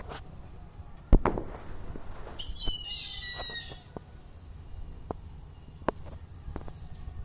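A sharp knock about a second in, then an Indian grey hornbill calling: a quick run of high, falling squealing notes lasting about a second and a half. A few faint clicks follow.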